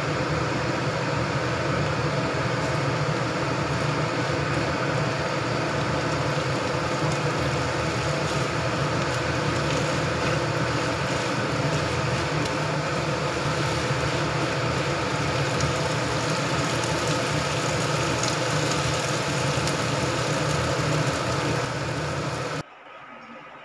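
Vegetables sizzling in a wok as they are stir-fried, over the steady hum of a kitchen fan. The sound cuts off suddenly about a second before the end.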